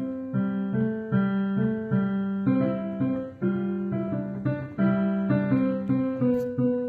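Electronic keyboard played by a child: a simple, even-paced melody of single notes over held low notes.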